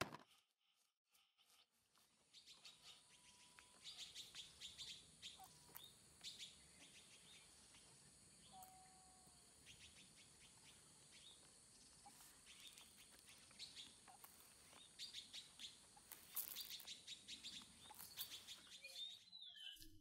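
Faint birdsong: many short, high chirps and tweets with a few brief whistled notes, over a steady faint high hiss. A single sharp click comes right at the start, and the birds set in about two seconds in.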